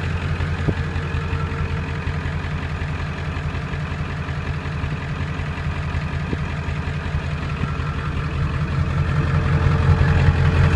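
1997 Ford F-350's 7.3-litre Powerstroke turbo-diesel V8 idling steadily, with a faint steady turbo whistle over the engine note, getting a little louder near the end.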